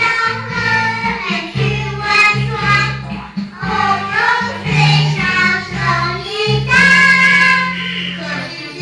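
Young children singing a song together over a musical accompaniment with a steady bass line, holding one long note about seven seconds in.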